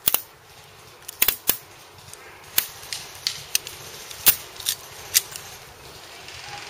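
Airsoft gas blowback pistols firing: about ten sharp pops at irregular spacing, some in quick pairs and threes.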